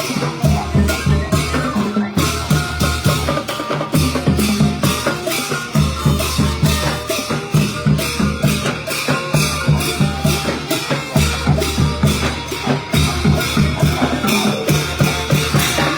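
Thai trae wong brass band playing a lively tune, drums and percussion keeping a fast, steady beat under the horns.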